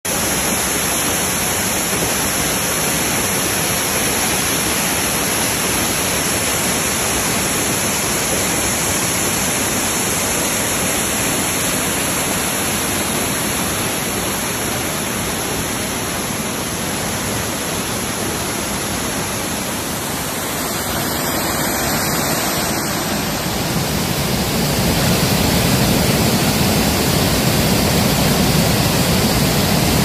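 Silver Waterfall, a tall mountain waterfall, rushing heavily down over rock in a steady, dense wash of water noise. The sound grows louder and fuller about three quarters of the way through.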